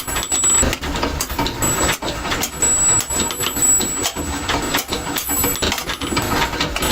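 Workshop machinery clattering, with many rapid, irregular sharp metal knocks over a steady mechanical noise.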